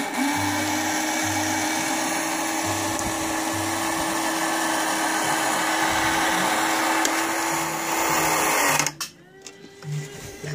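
Small toy-excavator motor, powered by a 9-volt battery, whirring at one steady pitch for about nine seconds as it drives the box's hinged panel open, then winding down and stopping.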